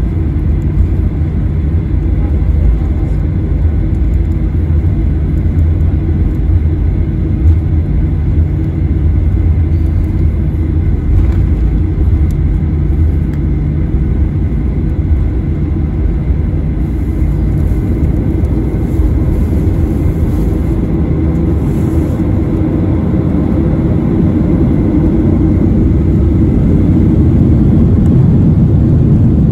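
Steady low cabin rumble of a Boeing 737-900ER taxiing, its CFM56-7B jet engines running, heard inside the cabin. It grows louder in the last few seconds as thrust comes up for takeoff.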